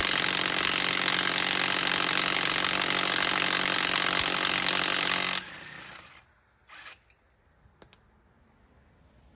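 Air impact wrench hammering steadily on a truck's lug nut, stopping about five and a half seconds in, followed by a short burst of noise and a few small clicks.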